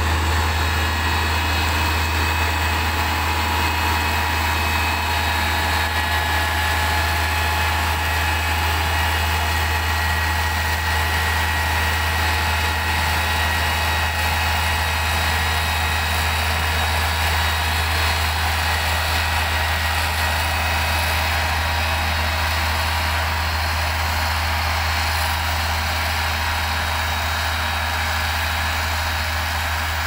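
Mitsubishi motor grader's diesel engine running steadily as it spreads and levels gravel, easing off slightly as the machine pulls away.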